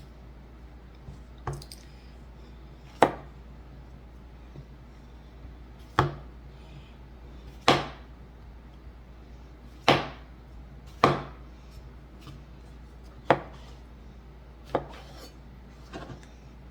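Kitchen knife slicing mushrooms on a cutting board: sharp, separate knocks every second or two, in an uneven rhythm, over a steady low hum.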